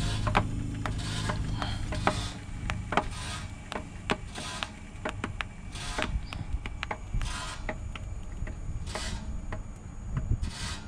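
Rear air-leaf suspension of a 1986 Peterbilt 359 rising as its air springs fill through the leveling valve on low supply pressure: irregular creaks and clicks from the suspension with a few short hisses. A low steady hum runs under it and stops about two seconds in.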